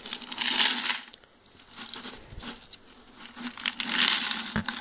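Hard potassium hydroxide flakes rattling and sliding against each other in a container as it is tipped and shaken. There are two bursts of gritty, clicking rattle, one near the start and one near the end.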